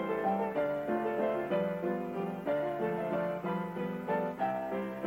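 Instrumental keyboard music: a melody over chords, with new notes struck every quarter to half second.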